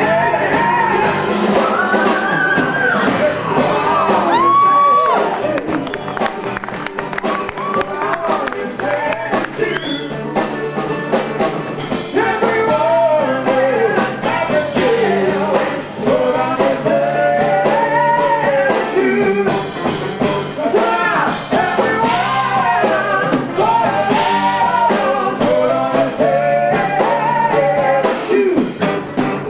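Live acoustic-electric band playing a song, with a man singing lead in long, wavering held notes over mandolin, electric bass and drums.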